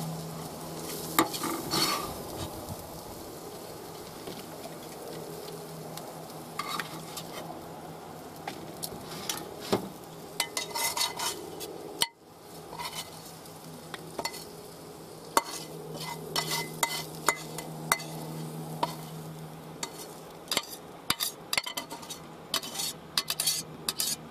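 A metal utensil stirring and scraping in a stainless frying pan while the food in it sizzles, over a steady low hum. Near the end a quick run of clinks and scrapes comes as the food is scraped out of the pan onto a plate.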